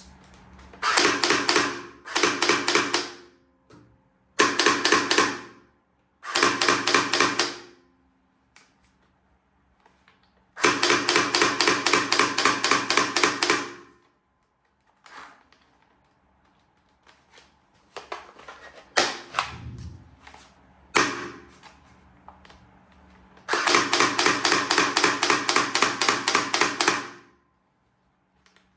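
Toy gun firing in repeated bursts of rapid rattling clicks, six bursts of one to three seconds each, with a few single clicks in the gaps.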